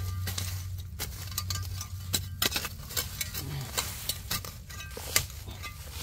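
Serrated metal-detecting shovel chopping and scraping into leaf litter and soil, a quick run of irregular strikes and scrapes, digging out a target the metal detector has just signalled.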